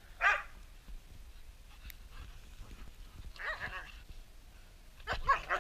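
Carolina dogs giving short play barks and yips as they chase each other: a sharp bark right at the start, the loudest, another call about three and a half seconds in, and a quick string of barks near the end.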